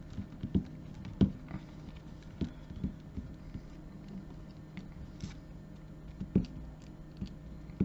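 Irregular small clicks and scrapes of a stiff leather lace being pulled and worked into a snake knot by hand, with a sharper click now and then, the clearest about a second in and after about six seconds.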